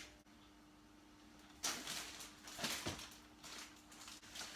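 Faint rummaging through kitchen cupboards: a few short rustles and knocks of packets and containers being moved about, starting about a second and a half in.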